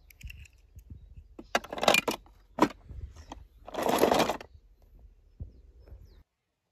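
Die-cast metal toy cars clattering and shifting in a plastic tub as it is handled, in a few short bursts, the longest about four seconds in.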